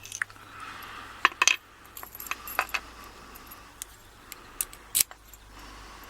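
Small metal clicks and clinks of padlock parts being handled during disassembly, with a quick cluster of sharper clicks about a second in and another sharp click near five seconds.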